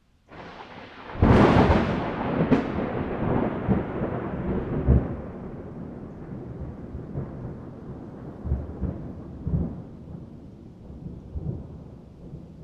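A thunderclap: a sharp crack about a second in, a second crack a second later, then a long rolling rumble that slowly fades, with a few low booms rising out of it.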